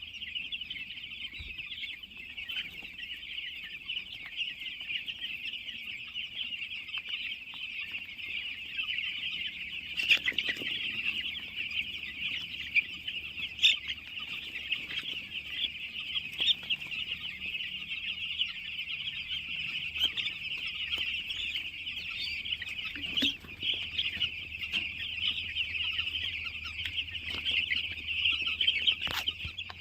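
A flock of many chickens calling at once in a dense, steady, high-pitched chorus. A few sharp knocks or clicks stand out, about ten and fourteen seconds in and again near the end.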